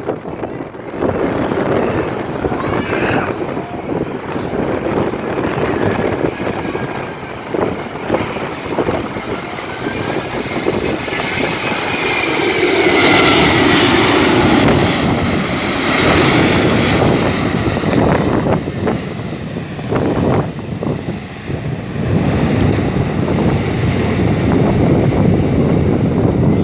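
Airbus A380-842's four Rolls-Royce Trent 900 turbofans heard as the jet passes on landing approach: the engine noise builds to a peak about halfway through, with a high whine that slides down in pitch as it goes by, then eases off. Wind buffets the microphone throughout.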